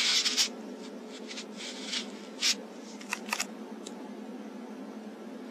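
Handling noise: a few short rustles and sharp clicks, mostly in the first half, over a steady low electrical hum.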